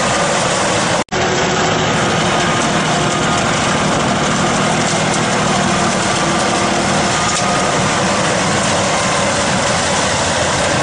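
Farm tractor engine running steadily under load, driving a front-mounted twin-chute snow blower that is throwing snow. The sound cuts out for an instant about a second in, then goes on unchanged.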